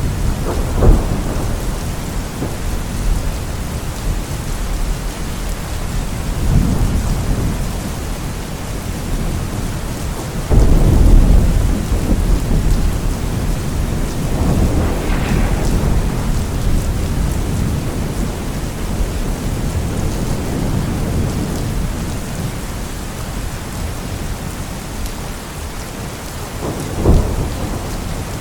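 Steady heavy rain with rolls of thunder. Several low rumbles swell and fade, the loudest about ten seconds in, and a shorter, sharper clap comes near the end.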